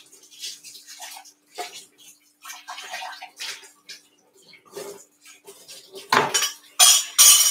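Kitchen clatter: irregular clinks and knocks of utensils and dishes being handled, louder and busier near the end, over a faint steady hum.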